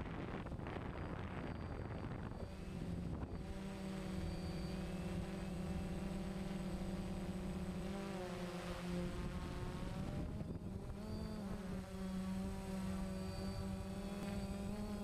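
DJI Phantom quadcopter's motors and propellers humming, heard from the camera on board. A noisy rush for the first two seconds or so gives way to a steady pitched hum that wavers briefly about eight and eleven seconds in as the drone changes speed.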